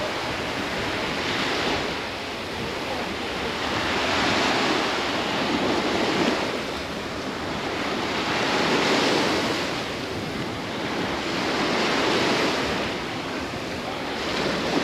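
Waves breaking and washing up a sandy beach, the surf swelling and fading every few seconds.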